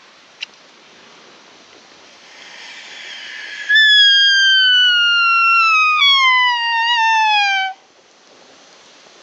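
A sika deer call blown by the hunter. First a breathy rush of air swells for about two seconds, then the call sounds as one long, loud whistle of about four seconds that slides steadily down in pitch and breaks once partway. It imitates a sika stag's single call.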